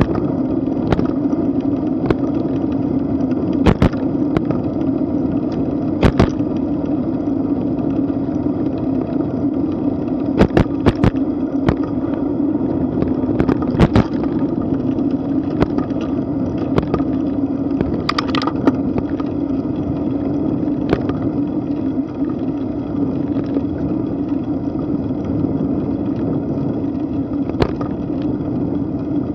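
Bicycle rolling along a paved path: steady tyre and wind noise on the bike-mounted microphone, broken by a sharp click or knock every few seconds as the bike rattles over bumps.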